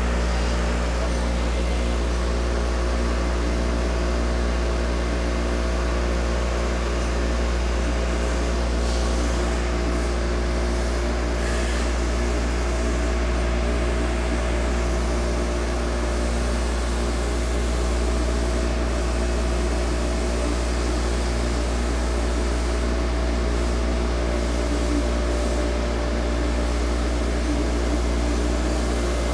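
ANCA CNC tool grinder grinding a solid carbide end mill under coolant spray: a steady machine drone with several held tones, a low hum and an even spray hiss.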